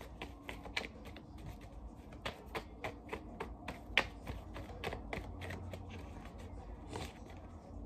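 Tarot deck being shuffled overhand by hand: a soft, quick, irregular patter of cards clicking and slapping against each other, with one sharper snap about halfway through.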